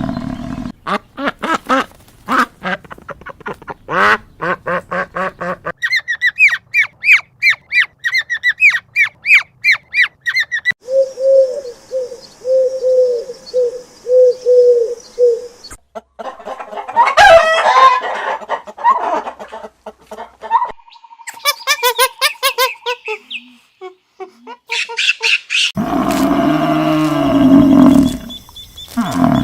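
A string of different animal calls, mostly bird squawks and calls, changing every few seconds. One stretch is a fast run of repeated high calls, another a run of lower repeated notes, and near the end comes a long, low, droning call.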